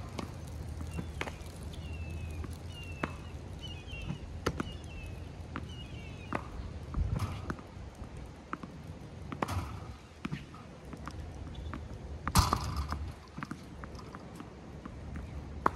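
Tennis balls from a Slinger ball machine being hit with a racket and bouncing on a hard court: scattered sharp pops and knocks, the loudest about twelve seconds in.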